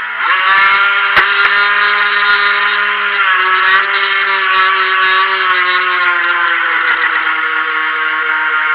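Helion Rivos RC boat's brushed electric motor whining under throttle. Its pitch jumps up sharply about a quarter second in, holds steady, then slowly eases down over the last few seconds. There is a single sharp knock about a second in.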